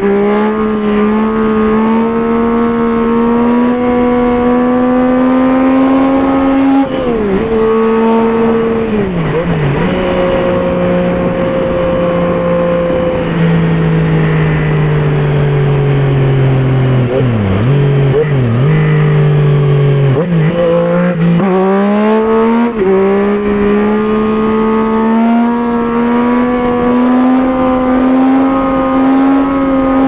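Yamaha Tracer 900's three-cylinder engine through an Akrapovic full titanium exhaust, heard on board at highway speed. Revs climb steadily, drop sharply about seven seconds in and sag with a few brief dips in the middle, then rise quickly about twenty seconds in and climb steadily again under acceleration.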